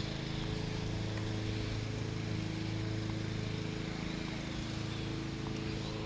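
Steady, even hum of a motor or engine running, holding one pitch throughout.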